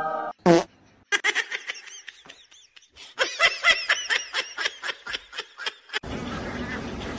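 A short sharp sound about half a second in, then a person laughing hard in quick repeated bursts for about five seconds. Near the end the laughter stops suddenly and a steady noisy background cuts in.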